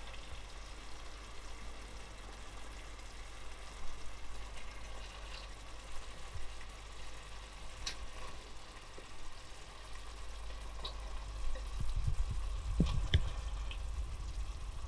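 Tomato sauce simmering in a steel pot, with occasional small pops and soft wet plops as raw hake slices are laid into the sauce by hand.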